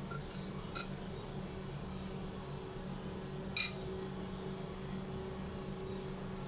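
Restaurant room tone: a steady low hum, broken by two light clicks of cutlery against a plate, the sharper one a little past halfway.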